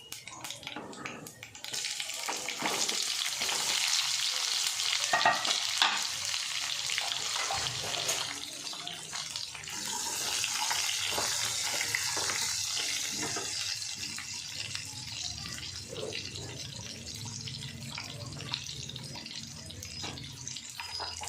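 Food frying in hot oil in a pan: a loud sizzle starts suddenly about two seconds in, as when ingredients go into the hot oil, then eases off over the following seconds, with the scrape and clicks of stirring.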